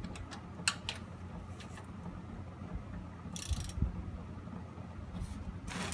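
Ratchet wrench clicking in short runs as the pan bolts of a Turbo 400 automatic transmission are loosened, over a steady low hum.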